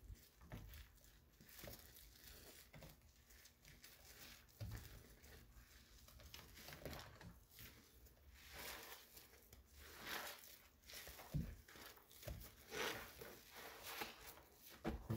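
Faint rustling and scattered small clicks, like things being handled, in a quiet small room.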